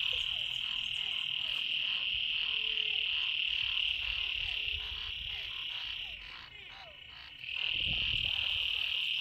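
Dense chorus of frogs calling from rain-flooded ground: a steady high-pitched trill that drops away for about a second and a half a little past the middle, with many short rising calls lower down.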